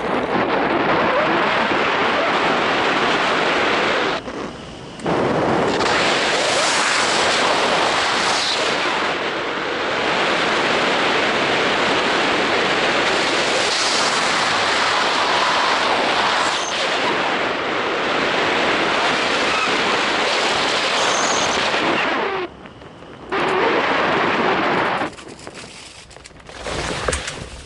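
Wind rushing over the microphone of a camera mounted on a hang glider's wing in flight, a loud steady roar of air. It cuts out briefly twice and dies down near the end as the glider slows to land.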